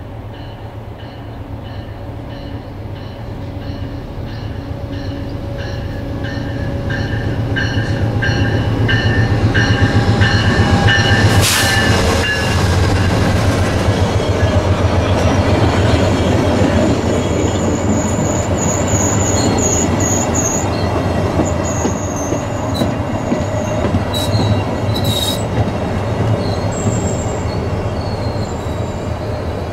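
VIA Rail passenger train pulling in: the diesel locomotive approaches and passes, growing louder, with a repeated high ringing. Its LRC coaches then roll by with high-pitched squealing in spurts as the train brakes for the station stop.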